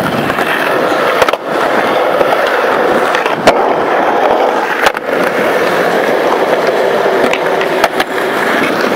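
Skateboard wheels rolling steadily on smooth concrete, with a few sharp clacks of the board popping and landing about one and a half, three and a half, five and eight seconds in.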